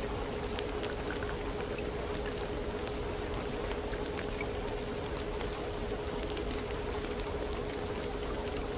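Recorded rain: an even hiss of falling rain with scattered drop taps, over a steady single tone.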